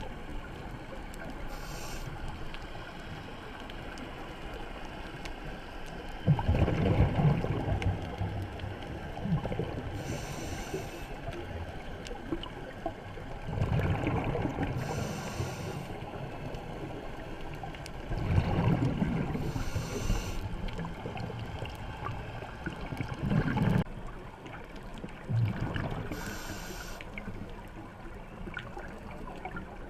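A scuba diver breathing through a regulator underwater. A short hiss comes with each inhale and a burst of bubbling rumble with each exhale, repeating about every five seconds.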